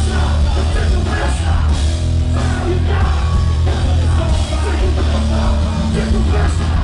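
Nu-metal band playing live and loud: heavy distorted guitars and bass with drums and sung and shouted vocals.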